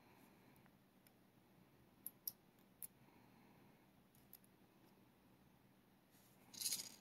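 Near silence broken by a few faint small clicks about two to three seconds in, from the tiny pins and springs of a pin-tumbler padlock being handled, then a brief scrape near the end.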